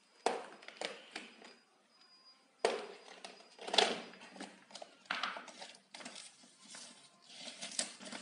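Clicks and clacks of a clear plastic storage box being opened by hand: a few light clicks, then louder snaps about two and a half and four seconds in as the snap latches are flipped open and the lid is lifted. Paper rustling and small plastic clicks near the end as the instruction booklet is taken out.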